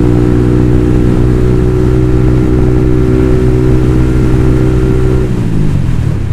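Sport motorcycle engine heard from the rider's seat, running at a steady cruising speed; about five seconds in the engine note drops in pitch.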